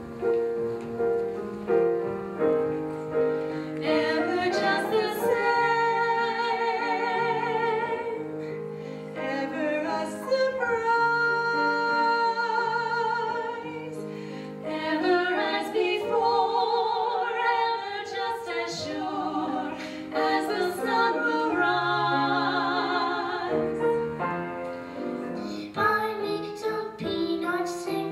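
Grand piano playing chords, joined about four seconds in by two women's voices singing a duet with strong vibrato over the piano accompaniment.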